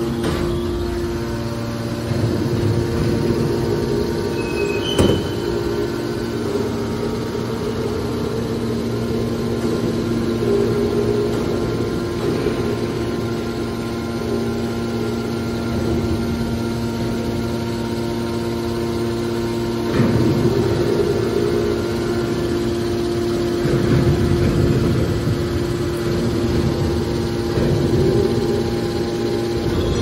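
Electric motors and hydraulic pumps of a hydraulic metal baler running with a steady hum. A sharp knock comes about five seconds in, and the sound swells louder now and then, most around two-thirds of the way through.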